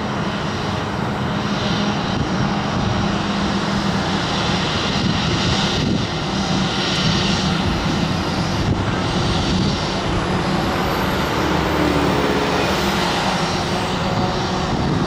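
Airbus A321-231's IAE V2500 jet engines running at low thrust as it taxis: a steady rushing hiss, with a faint high whine that rises and falls a few seconds before the end.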